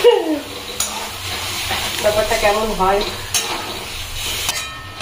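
Onions and spice paste frying in a pan and being stirred, a steady sizzle with a few sharp knocks of the stirring spoon on the pan.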